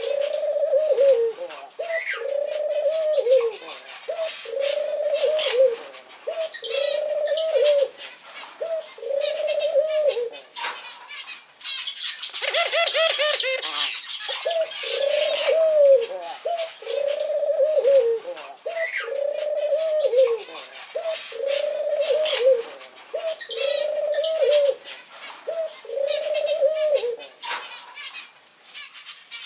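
Male Barbary dove (ringed turtle dove) cooing over and over, about one coo every second and a half. Each coo rises and then falls, and the run stops near the end.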